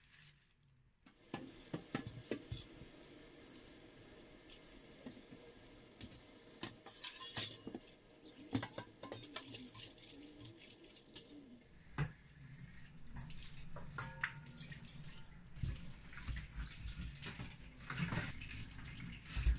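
Water running from a kitchen tap into a stainless steel sink as a wok is rinsed under it, with occasional knocks of the pan against the sink. The water starts about a second in and runs fuller from about twelve seconds in.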